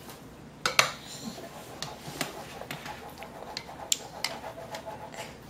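A toddler feeding herself with a soup spoon: a sharp click a little under a second in, then a run of lighter clicks and mouth smacks as she eats.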